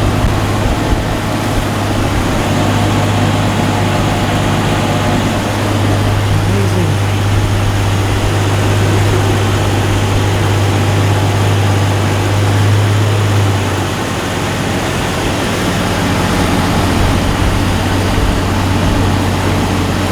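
A riverboat's engine running steadily with a strong low hum, its note changing and easing off about 14 seconds in.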